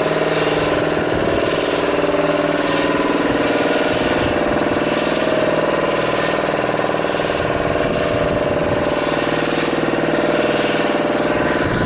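Engine running steadily with an even, unchanging note.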